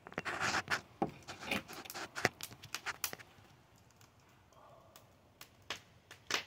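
A flurry of sharp clicks and pops mixed with rustling, scraping noise for about three seconds, then a few isolated clicks near the end: a wood fire crackling in a metal fire pit, with handling noise from the phone filming it.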